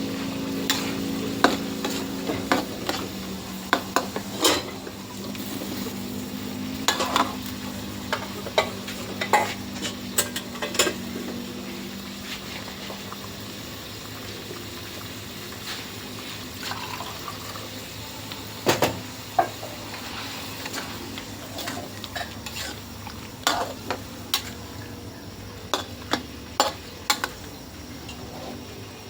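Curry being stirred in a pan over the heat. A utensil scrapes and knocks against the pan in irregular clicks and clusters of taps, over a steady sizzling simmer.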